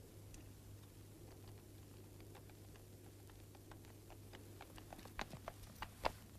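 Quiet steady low hum, with scattered hoof clops on hard ground that start a couple of seconds in and grow louder and more frequent near the end as horses approach.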